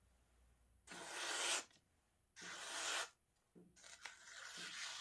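A Damascus chef's knife blade being wiped by hand with a wipe: three rubbing swipes along the steel, the last one the longest.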